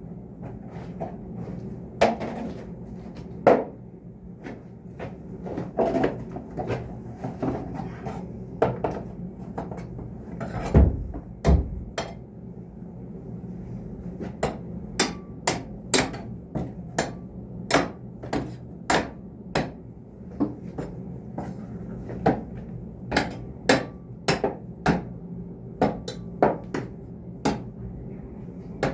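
Repeated sharp knocks, like hammer blows on metal or wood, sparse at first and then about one to two a second, over a steady low hum. Two heavy low thumps come near the middle.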